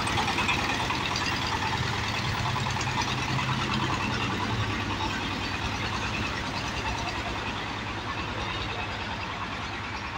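Mini tractor's engine running with a rapid, knocking beat as the tractor drives off, gradually growing fainter.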